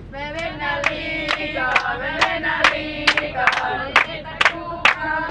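A group of young women singing a chant together, clapping in time at just over two claps a second.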